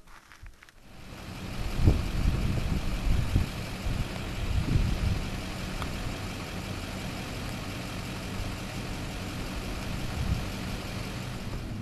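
A motor vehicle engine idling with a steady low hum, coming in about a second in, with a few louder low surges in the first few seconds.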